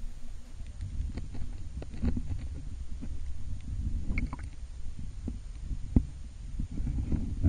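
Muffled sound of water heard by a camera held under the surface: a steady low rumbling wash of moving water with scattered small clicks and ticks.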